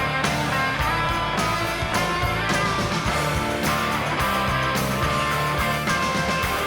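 Instrumental passage of a 1980s rock song: electric guitars playing over bass and a steady drum beat, with no singing.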